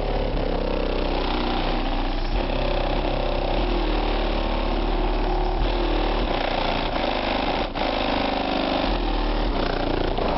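An 18-inch Fi BTL subwoofer in a car playing very deep bass at high volume, heard from outside the car. The low notes change every couple of seconds under a muffled, buzzing midrange.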